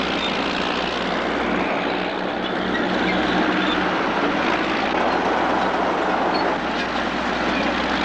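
Crawler bulldozer running steadily as it works over loose dirt, a dense engine-and-machinery noise with a low hum underneath.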